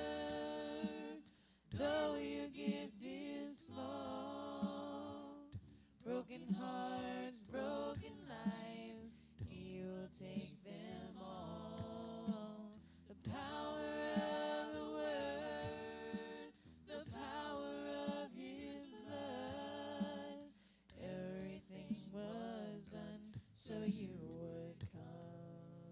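A song: a voice singing long, held phrases over music, with short breaks between the phrases.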